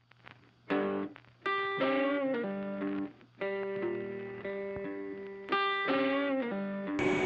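Background music: an electric guitar playing single plucked notes, some of them bent in pitch. Just before the end, a steady machine noise comes in.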